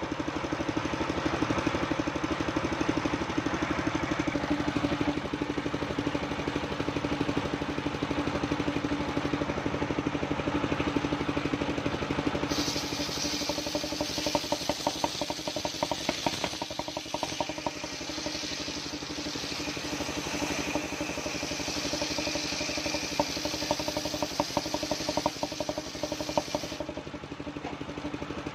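Engine-driven mobile circular sawmill running steadily; a bit under halfway through, a higher hiss joins as the blade cuts into old coconut-palm wood, and it stops near the end as the engine runs on.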